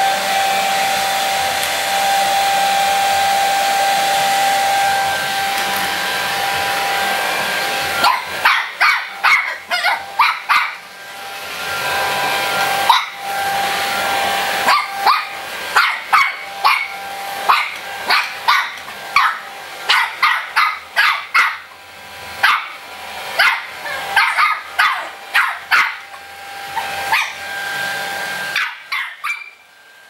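Hair dryer blowing with a steady whir and a held whine. About eight seconds in, a Shih Tzu puppy starts barking at it in a long run of short, high barks, about two a second, while the dryer keeps running underneath. The sound drops away near the end.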